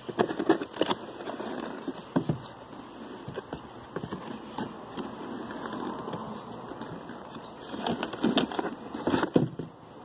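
Cardboard packaging being handled: rustling, scraping and light knocks of cardboard, busiest near the start and again shortly before the end.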